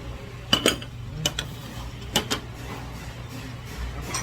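Dishes and cutlery clinking on a table: about six sharp knocks, some in quick pairs, over a steady low hum.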